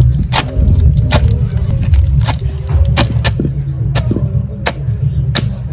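Repeated sharp knocks, about one every second and not quite evenly spaced, over a steady low rumble: a kitchen tool striking food as fufu ingredients are prepared.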